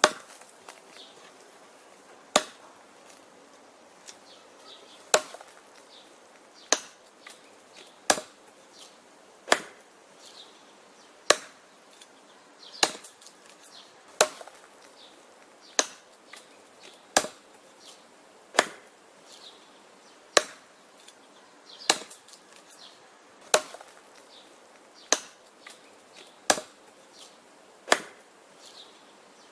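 Wood being chopped with an axe: sharp, regular blows biting into wood, about one every one and a half seconds, with a few fainter knocks between some blows.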